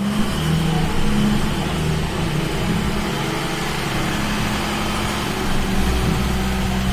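Loaded heavy truck's engine running steadily as the truck drives slowly onto the weighbridge platform; its low rumble grows a little stronger near the end.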